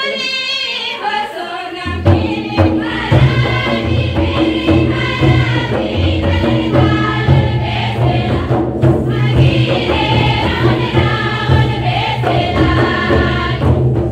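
Adivasi karma dance folk song sung by a group of voices, joined about two seconds in by a low, steady drumbeat.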